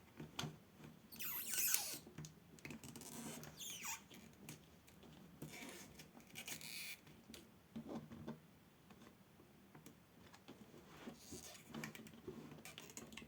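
Faint scratching and rubbing in short bursts as adhesive tape strips are worked out from under a laptop screen panel by hand.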